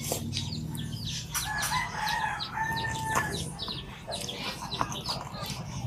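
A rooster crowing once, a held call of about two seconds that starts about a second and a half in, with sharp clicks scattered around it.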